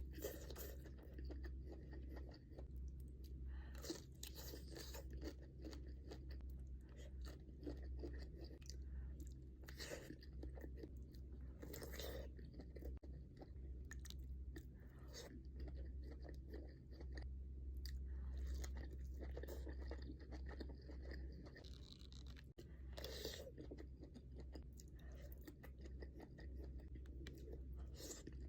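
A person eating king crab boil close to the microphone: repeated chewing and crunching, over a steady low hum.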